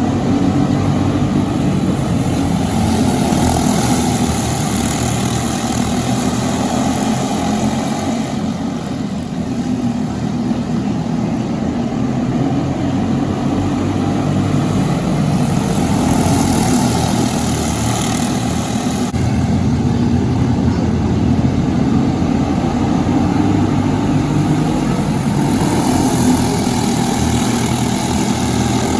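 Four-stroke racing kart engines running at speed on a track, a steady drone that swells in its upper range every ten seconds or so.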